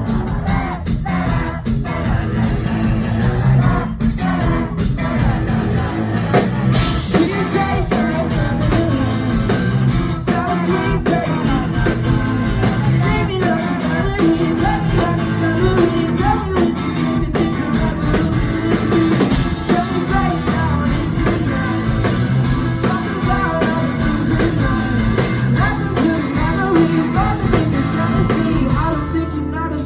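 Live pop-rock band playing with singing; the sound is sparse with a regular beat at first, and the full band fills in about seven seconds in.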